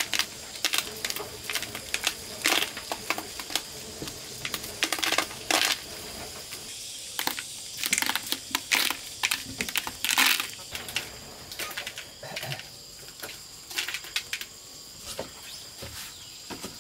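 Dried corn kernels being stripped off the cob by hand and dropping into a plastic bucket: quick, irregular clicks and rattles.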